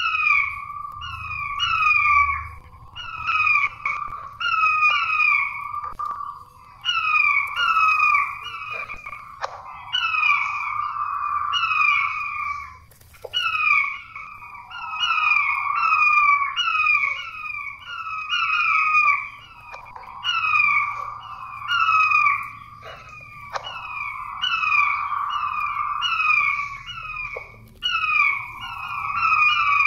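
Puyuh batu (quail) lure call: the birds call continuously in bouts of quick, repeated hooked notes, about two or three a second, each bout lasting a few seconds with short dips between.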